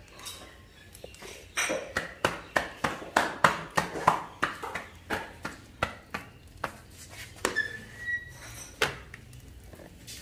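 Roti dough slapped back and forth between the palms to stretch it, a quick run of about three slaps a second lasting some five seconds.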